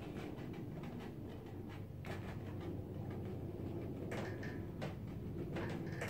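A few short scrapes and taps of a hand working on watercolour paper clipped to a painting board, spaced a second or two apart, over a low steady hum.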